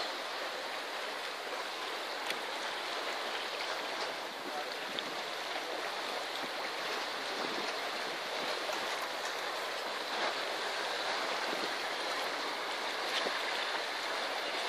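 Sea water washing and rushing as a steady, even hiss of waves.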